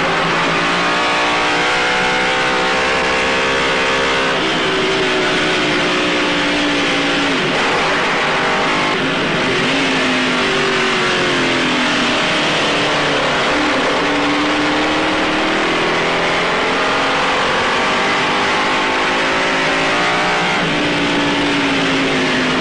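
Ferrari 2500 Grand Prix car's Lancia-derived eight-cylinder engine at racing speed, its pitch climbing and dropping back again and again as it is driven hard.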